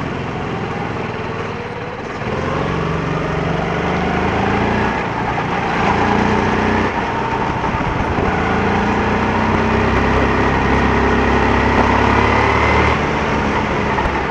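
Go-kart engines running and revving, their pitch rising and falling. The sound gets louder about two seconds in and eases off shortly before the end.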